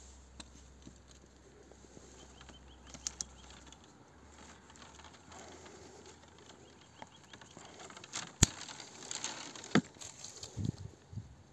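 Hand pruning shears snipping apple-tree shoots: a few sharp clicks, the loudest about eight and a half seconds in, with a brief rustle of twigs just after it.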